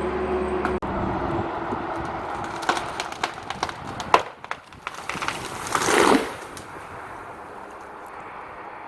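A motor hums steadily and cuts off abruptly about a second in. Then wood cracks and splinters in sharp snaps as a felled tree gives way. Near six seconds comes a loud rushing crash as the tree comes down through branches.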